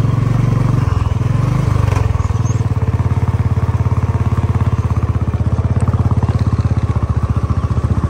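Motorcycle engine running as the bike rides along, heard from on the bike: a deep, steady, pulsing engine beat. Its note wavers about a second in, then holds steady.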